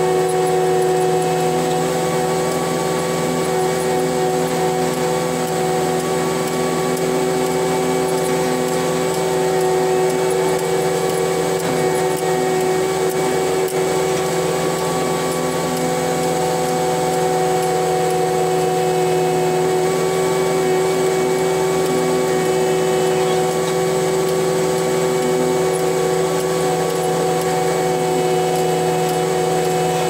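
Cat 289D3 compact track loader's diesel engine and hydraulics running steadily at working speed, heard from inside the cab, with a steady whine over the engine drone as the machine grades dirt with its dozer blade.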